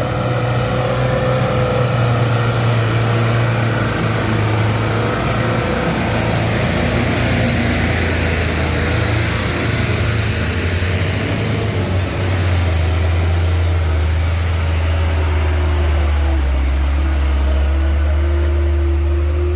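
Heavy truck diesel engines running hard under load while a 4x4 recovery truck tows another truck up a steep climb. The low engine note drops to a deeper pitch about twelve seconds in.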